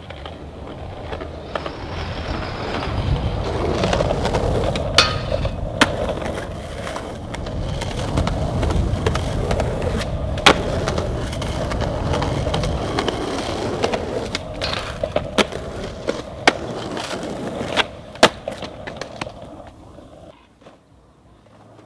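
Skateboard wheels rolling over street asphalt with a steady rough rumble. Sharp clacks come several times as the board pops and lands. The rolling grows louder after a couple of seconds and dies away near the end.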